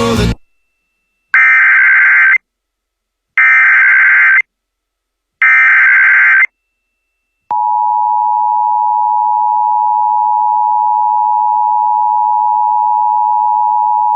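Emergency Alert System tones for a flash flood warning. Three one-second bursts of SAME digital header data come about a second apart. Then, about 7.5 s in, the steady two-tone EAS attention signal begins and holds on.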